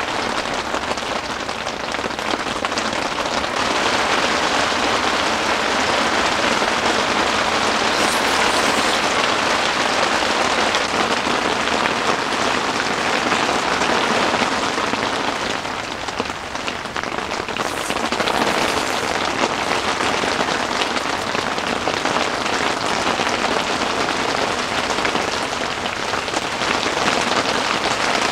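Heavy rain beating steadily on the fabric of a Vantagon one-touch tent, heard from inside. It eases briefly about halfway through and then builds again.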